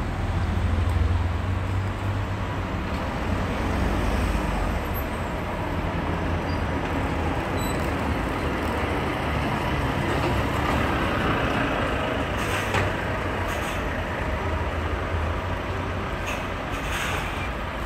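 Road traffic passing on a town street: car and heavy-vehicle engines and tyres, with a strong low rumble over the first few seconds and a few short hisses in the last third.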